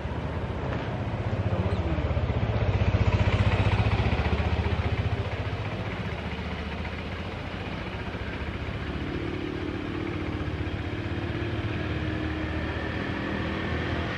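A motor scooter's small engine running while riding. It grows louder for a few seconds about two seconds in, then settles to a steady run.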